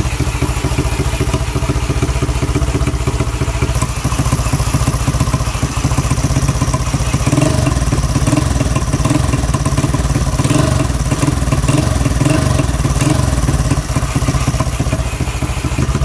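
Yamaha Mio scooter's bare single-cylinder four-stroke engine running steadily at idle, picking up slightly about seven seconds in. It runs again now that its broken cam sprocket has been replaced with a new one.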